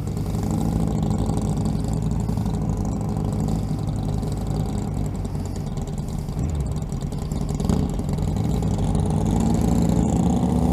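Motorcycle engines running at low road speed, with the engine note rising and getting louder near the end as the bikes accelerate.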